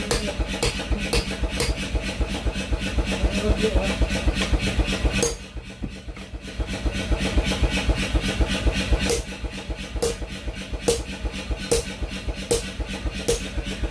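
A small engine running steadily. From about nine seconds in, sharp strikes repeat at a steady pace of a little over one a second. The sound drops away for about a second and a half about five seconds in.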